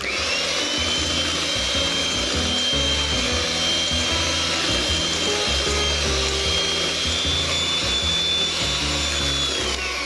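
Dualit electric hand mixer running, its beaters whisking a mousse mixture in a glass bowl. The motor's whine rises as it starts and falls away as it is switched off near the end.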